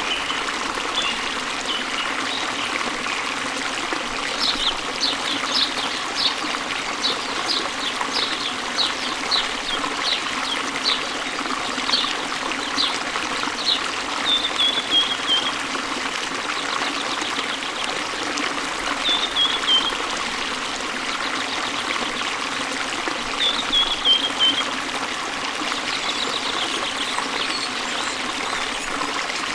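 Waterfall water running steadily, with a bird calling over it. The bird gives a string of short high notes, about two a second, then three brief falling trills spaced several seconds apart.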